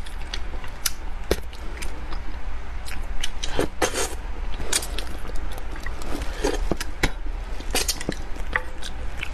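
Close-miked eating of spicy braised fish: wet lip smacks, slurps and chewing, with many sharp clicks of wooden chopsticks against the dish.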